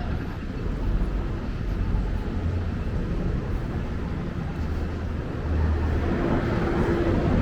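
Steady low rumble of a moving vehicle, with a faint steady hum joining near the end.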